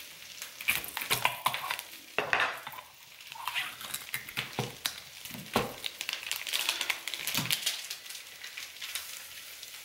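Taco meat sizzling in a wok, with repeated clinks and scrapes of a knife and spoon scooping salsa from a jar and stirring it into the meat.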